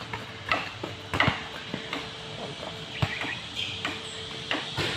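A basketball thudding on a concrete court in play: a few irregular single bounces over faint background noise.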